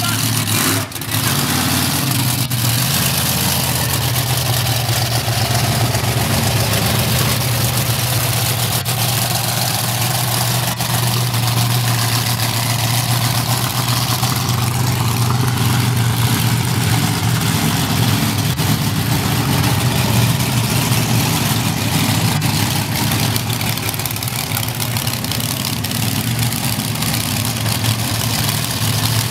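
Monster truck engine running at a steady, loud idle.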